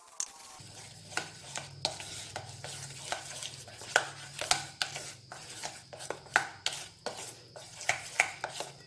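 A metal spoon stirring flour and water in a stainless steel bowl, clinking and scraping against the side in irregular strokes, about two or three a second, as the flour dissolves into a thin paste.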